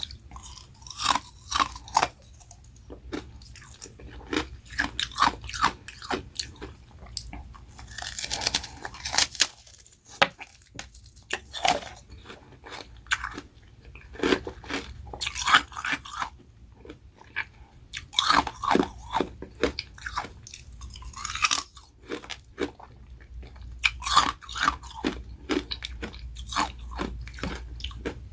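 Close-up biting and chewing of ice: carbonated ice rounds and refrozen freezer-frost shaved ice crunching between the teeth. It comes in bursts of crisp crackling bites, with brief pauses between mouthfuls, for example around ten seconds in and again around twenty-two seconds in.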